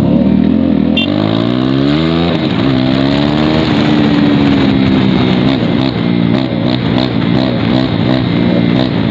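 Motorcycle engine accelerating: its pitch climbs for about two seconds, drops at a gear change, then runs steadier with small rises and falls.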